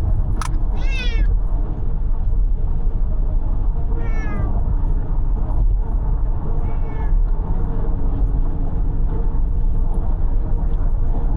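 A domestic cat meowing three times, each call short and falling in pitch, over the steady low rumble of road noise inside a moving car. A sharp click comes just before the first meow.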